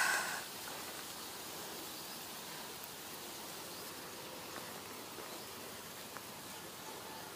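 Steady outdoor background with insects buzzing, broken by a couple of faint clicks. A louder sound fades out in the first half second.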